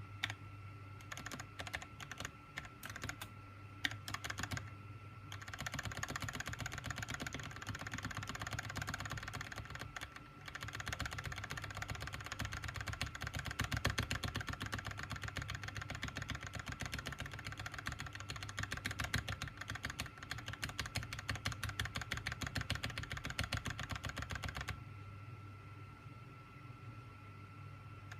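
Typing on a SteelSeries Apex M800 mechanical keyboard: a few separate keystrokes at first, then fast continuous typing for most of the stretch with a brief pause around ten seconds in, easing back to slower separate keystrokes near the end. A faint steady hum runs underneath.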